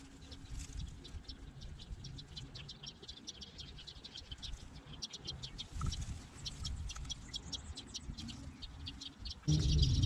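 Sparrows chirping in quick, repeated short notes. About half a second before the end a sudden, much louder low noise cuts in.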